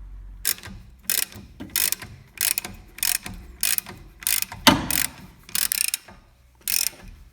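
Ratchet wrench clicking through about ten back-strokes, roughly one every two-thirds of a second, as a 7 mm hex bit loosens a front brake caliper guide bolt, with one louder knock a little past the middle.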